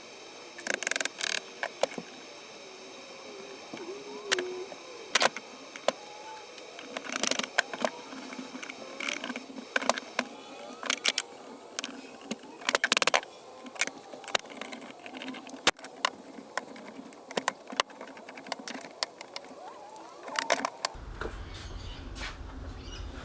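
Metal parts and tools being handled at a workbench: irregular clicks, knocks and short rattling clatters over a steady high hum. Near the end the hum gives way to a low rumble with faint chirps.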